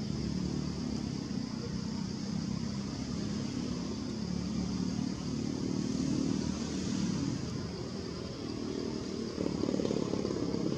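Steady low rumble of passing road traffic, with cars and motorbikes, growing louder about nine and a half seconds in as a vehicle passes close by.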